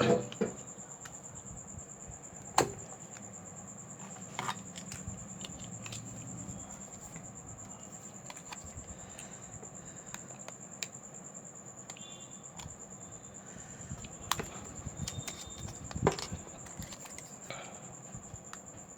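Scattered small clicks and taps of hand tools and parts during a smartphone display replacement, a few sharper knocks among lighter ticks, over a steady high-pitched whine.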